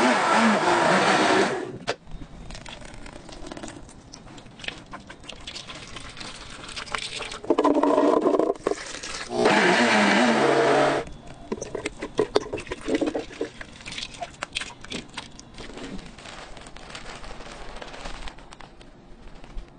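Countertop blender motor running in short bursts, blending chopped onion with liquid: once at the start for about a second and a half, then twice more around the middle. Lighter clicks and scrapes in between.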